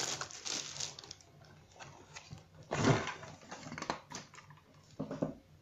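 Cardboard box and plastic packaging handled as a plastic toy helicopter is pulled out: scattered clicks, knocks and rustles, with a louder rustle about three seconds in and another near the end.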